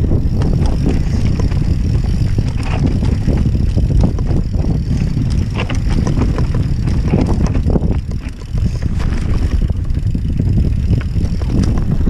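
Banshee Spitfire mountain bike descending rough rocky singletrack: a constant low wind rumble on the camera's microphone, with tyres crunching over dirt and rock and frequent clatters and knocks from the bike. The rumble briefly eases about eight seconds in.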